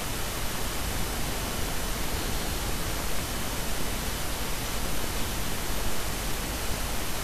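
Steady hiss of background noise, even and unbroken, with a faint thin high tone beneath it.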